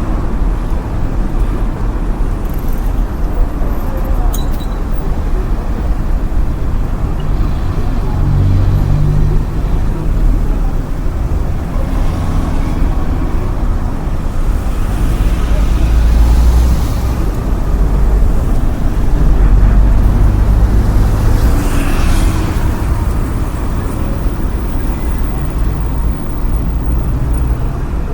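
City street ambience: a steady rumble of road traffic, with cars passing by now and then.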